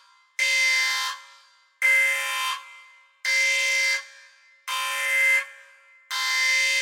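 An electronic alarm or buzzer sounding a regular run of long, harsh beeps, about one every second and a half, five times.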